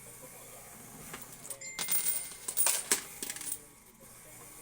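Quarters clinking in a coin pusher machine. There are several sharp metallic clinks between about one and three and a half seconds in, with quieter stretches before and after.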